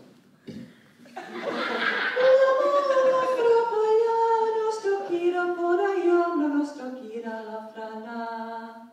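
A woman singing unaccompanied into a microphone. A breathy, rough-edged onset comes about a second in, then long held notes step downward in pitch to a low sustained note at the end.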